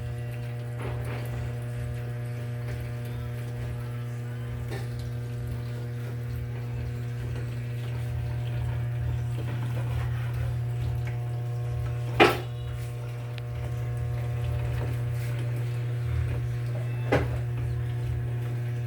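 Consul 15 kg washing machine running, with water moving and a steady hum throughout. There is a sharp click about 12 seconds in and a smaller one near the end.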